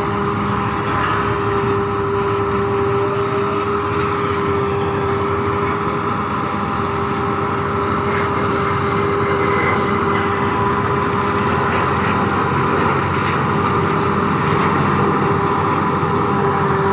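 Claas Jaguar self-propelled forage harvester running steadily while harvesting maize for silage: a constant machine noise with a steady pitched hum held through, no change in speed.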